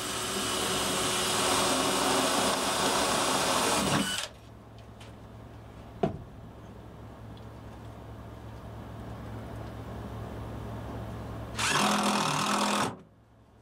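Cordless drill driving a fastener into a wooden ceiling furring strip: one long run of about four seconds that winds down, a single sharp knock around six seconds in, then a second short run of about a second near the end.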